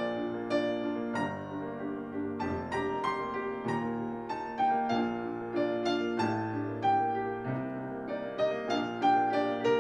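Piano playing a gentle classical piece, melody notes and chords struck a few times a second and left to ring.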